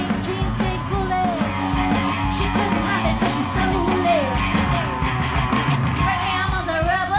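Live rock band playing: electric guitar and drum kit, with a woman singing into the microphone.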